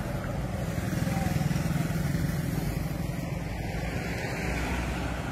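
Motorcycle engine running close by, with a car passing on the road. The sound swells about a second in and then eases.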